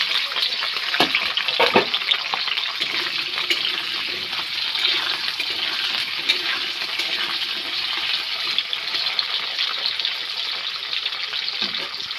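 Potato and pointed gourd (potol) pieces frying in hot oil in a kadai: a steady crackling sizzle, with a couple of knocks about a second in.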